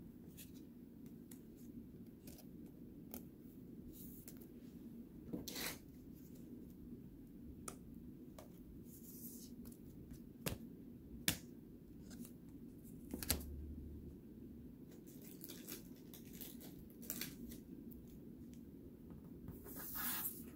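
Trading cards being put into protective plastic sleeves and cases: faint plastic rustling and sliding with scattered small clicks, two sharper clicks around the middle and a longer rustle near the end.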